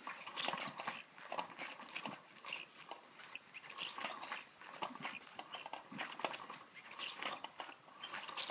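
Battery-powered Cat's Meow cat toy running: an irregular clicking and rattling from its motor-driven wand moving under the fabric cover.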